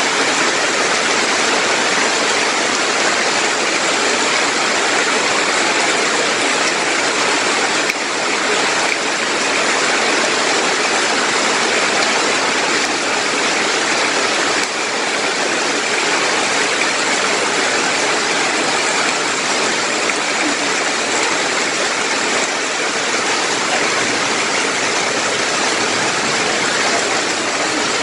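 Heavy rain pouring steadily onto banana leaves and dense trees: an even, unbroken hiss of drops on foliage.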